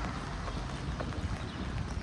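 Footsteps on a wet sidewalk in steady rain, with light irregular taps over an even hiss of rain on the pavement.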